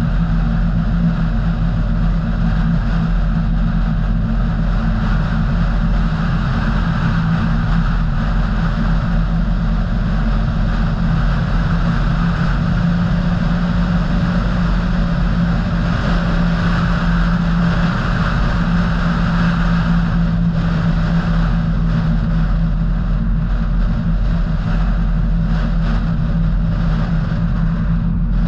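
A car driving at a steady speed: an even, unbroken drone of engine and tyre noise with a constant low hum.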